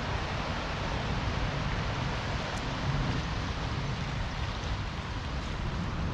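Steady rush of rain and river water, an even hiss without pauses, with a few faint drop ticks.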